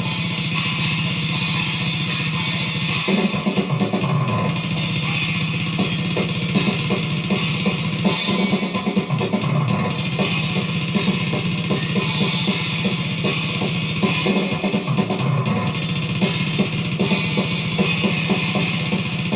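Death metal music playing: a full drum kit, with bass drum and cymbals, under distorted electric guitar, heard as a studio-style drum and band check.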